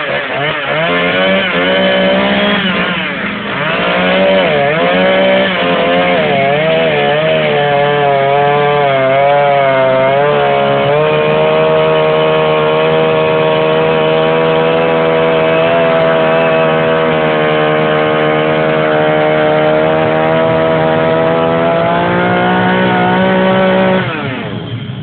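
Two-stroke chainsaw cutting wood in a carving job, its engine speed rising and falling with the throttle for about ten seconds, then held steady at high revs before it drops away near the end.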